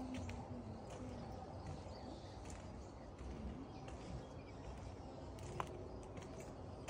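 Outdoor woodland ambience: faint bird calls, including a few short low coos and high chirps, over a soft steady rumble, with light irregular taps of footsteps on a plank footbridge deck. A sharper single tap stands out about five and a half seconds in.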